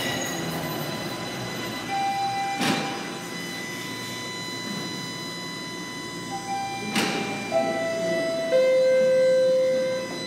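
Bombardier Toronto Rocket subway train coming to a stop at the platform, its wheel squeal dying away, with two short hisses of air. This is followed by a series of electronic chime tones stepping down in pitch as the doors open, the last and lowest held for about a second and a half.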